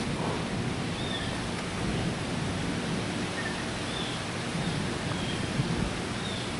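Strong thunderstorm wind blowing steadily, a rushing noise.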